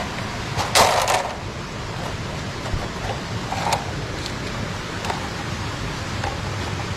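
Bamboo strips being handled while a frog trap is made, with a short crackling rustle about a second in and a few light clicks and knocks after, over a steady rush of running stream water.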